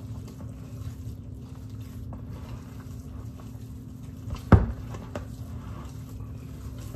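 Hands squishing and kneading a wet ground-beef meatloaf mixture in a plastic mixing bowl, over a steady low hum. A single sharp thump about four and a half seconds in.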